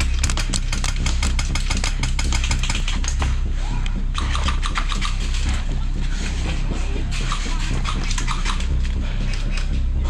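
Airsoft guns firing rapid full-auto bursts, a quick string of sharp clicks in the first few seconds, then more scattered shots, over a steady low rumble.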